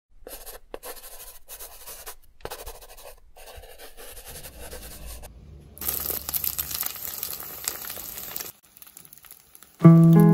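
Scratchy pen-on-paper writing sounds in short strokes for the first five seconds, then a steady hiss as oil is poured into a hot pan, cut off suddenly about eight and a half seconds in. Music with held notes starts near the end.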